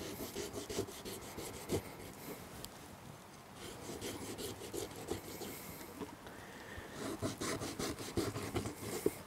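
Kitchen knife sawing and scoring slits into pieces of raw beaver tail on a plastic cutting board: a run of irregular rasping, scraping strokes as the blade drags through the scale-patterned skin.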